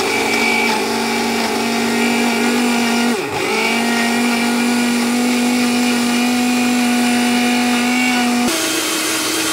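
Electric countertop blender running at speed, loud and steady, chopping onion, herbs, garlic, ginger and oil into a paste. The motor dips briefly about three seconds in, then comes back up, and its pitch steps higher near the end as the load turns smooth.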